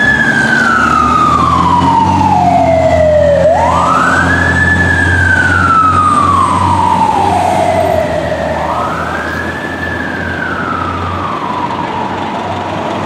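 Fire apparatus siren winding up quickly and sinking slowly, three times, over the low rumble of a heavy truck engine; the sound grows quieter near the end as the apparatus pull away.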